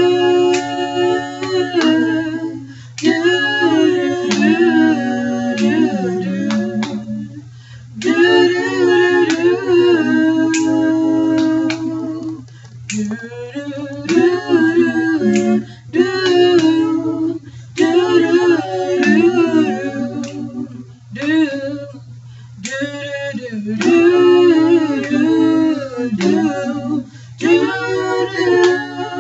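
Female voices singing a gospel song together in phrases with long held notes, with sharp clicks here and there and a steady low hum beneath.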